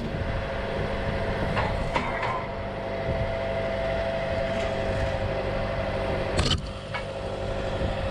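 John Deere 6430 tractor's diesel engine running steadily under way while pulling a rock picker, with a few sharp knocks, the loudest about six and a half seconds in.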